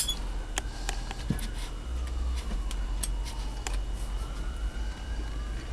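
Scattered light clicks and knocks of a CB radio being handled and set in a bench radio vise, over a steady low hum. A faint slow wail falls and rises in the background.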